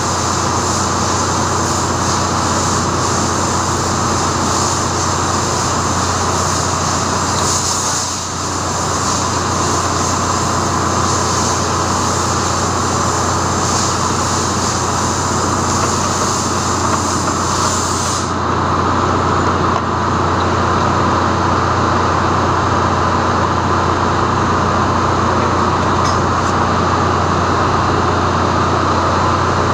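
Steady, loud engine-room machinery drone with a constant low hum and an even hiss. No separate tool sounds stand out above it, and the highest part of the hiss thins about two-thirds of the way through.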